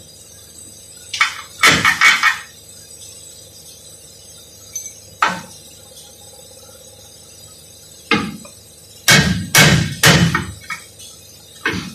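Metal clanks and clinks of hand tools and parts striking the underside of a car's transmission: a few scattered knocks, then a quicker run of heavier clanks about eight to ten seconds in.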